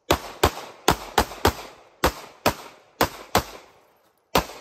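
TISAS MAC 9 DS 9mm pistol fired about ten times in a competition string, the shots mostly in quick pairs about a third of a second apart, each with a short echo, with a longer pause before the last shot near the end.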